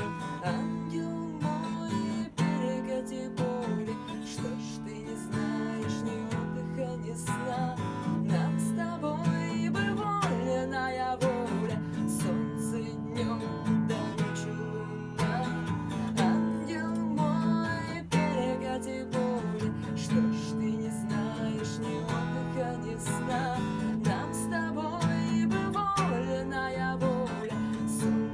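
A woman singing to her own strummed acoustic guitar, a slow art-rock song played live and unplugged.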